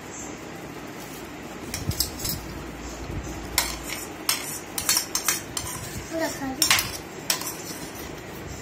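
Metal spoon clinking and scraping against a stainless steel bowl as noodles are scooped up, in a run of irregular sharp clinks starting about two seconds in.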